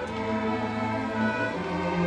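Student string orchestra playing: violins, cellos and double bass bowing slow, held chords, with the harmony changing near the start and again near the end.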